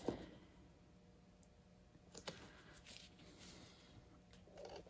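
Near silence: room tone with a few faint, sharp clicks.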